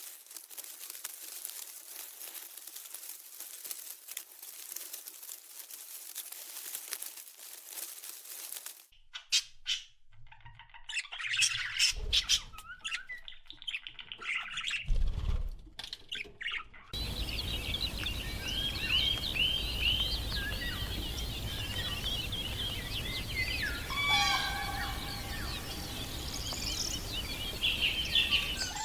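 Birds chirping in many short, quick notes over a steady background hiss, which take up the second half. Before them come about nine seconds of even crackling hiss, then a short stretch of mixed calls with a low thump.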